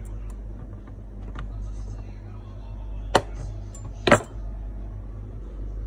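Two sharp knocks about a second apart on a jeweller's workbench, over a steady low hum; the second knock is the louder.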